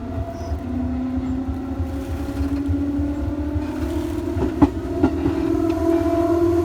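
Electric train running, its traction-motor whine rising slowly and steadily in pitch as it gathers speed, over a low rumble. Two sharp clacks of the wheels over rail joints come about halfway through.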